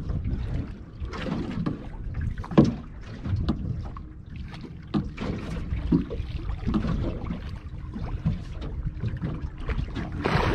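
Wind buffeting the microphone and water slapping against the hull of a small boat, with irregular knocks and splashes; the sharpest knock comes between 2 and 3 seconds in.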